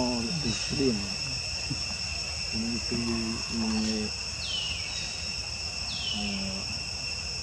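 Steady insect chorus, a continuous high-pitched buzz that never breaks, with two short downward chirps in the second half.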